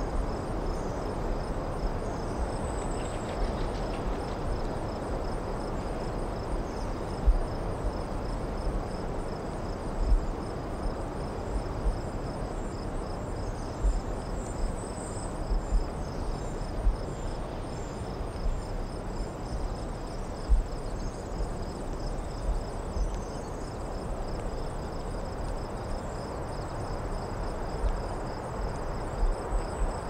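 Crickets chirping in a steady, even pulse over a low hum of distant road traffic. Occasional sudden low thumps stand out as the loudest sounds.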